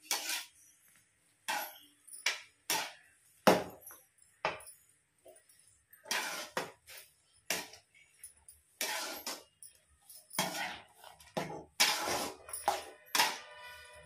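Metal spatula scraping and knocking against a metal pan at an irregular pace while stirring and mashing rusk pieces soaked in milk.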